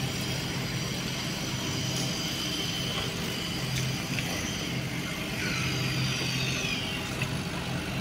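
Refrigerator's LG hermetic compressor running with a steady low hum and a faint high whine above it, while fresh compressor oil is charged into it.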